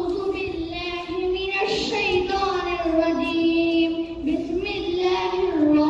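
A young boy singing into a microphone: a slow tune of long held notes that step up and down in pitch.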